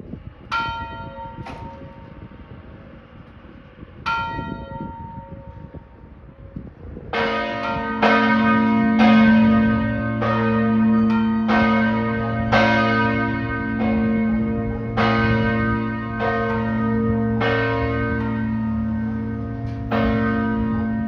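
Church bells in a tower. First, a few single strokes of a higher bell. Then, from about 7 seconds in, the largest bell of the B-flat peal is struck over and over, about once a second, each stroke leaving a long, deep hum.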